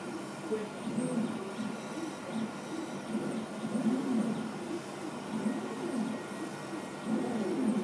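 Laser cutter's gantry stepper motors whirring as the head darts to and fro across the sheet, the pitch rising and falling with each move, several moves a second, over a steady hum.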